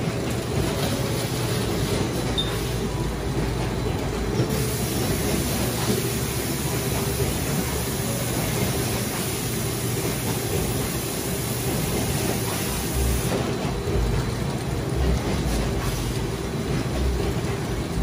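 Aluminum can filling line running, with cans moving along the conveyor rail: a steady mechanical running noise with a constant hum.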